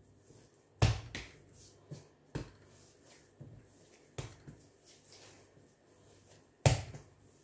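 Bread dough being kneaded by hand on a floured stone countertop: soft slaps and thuds as the dough is pushed and folded, with two loud thumps, about a second in and near the end.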